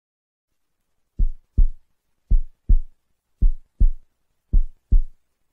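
Heartbeat sound effect: low double thumps (lub-dub), four beats at a little over one a second, starting about a second in.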